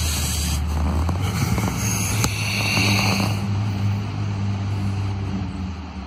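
A steady low droning hum, with the rustling and handling noise of a camera carried quickly through forest undergrowth. The rustling stops about three and a half seconds in, and the hum fades near the end.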